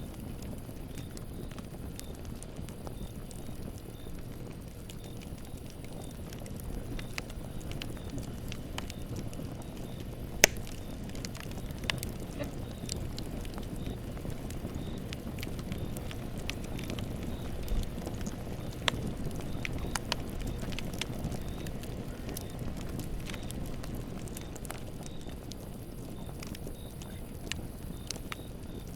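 Campfire burning: a steady low rumble of flames with scattered sharp crackles and pops of the burning wood. The loudest pop comes about ten seconds in.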